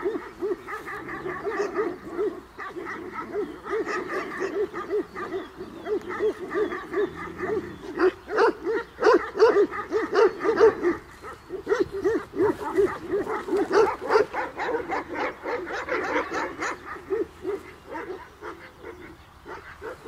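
Tibetan Mastiffs barking continuously, several barks a second.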